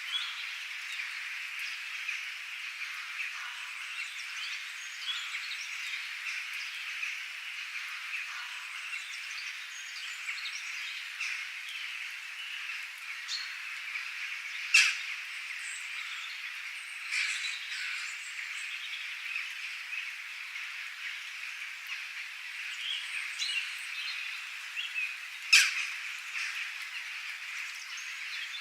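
Bird ambience: a dense, steady chorus of calls with scattered high chirps over it. Two loud, sharp calls stand out, one about halfway through and one near the end.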